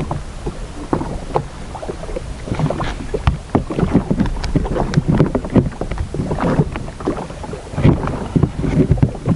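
Water slapping and splashing irregularly against a jet ski's hull, with wind on the microphone.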